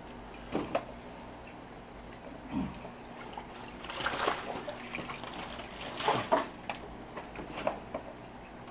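Water splashing and dripping in short, irregular bursts as a fish net is dipped in and lifted out of the water.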